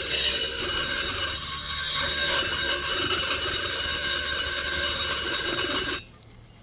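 High-speed rotary tool whining as its cutting bit grinds metal out of the lower transfer port of a chainsaw cylinder during porting. It cuts off suddenly about six seconds in.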